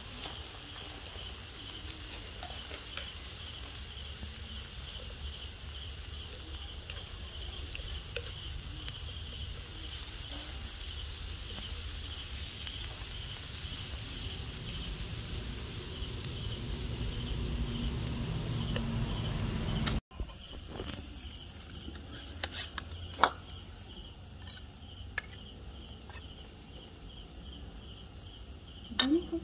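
Meat sizzling and broth simmering on an electric hotpot grill, over a steady pulsing chirp of insects. After a cut about two-thirds in, a few sharp clinks of a metal spoon against ceramic sauce bowls.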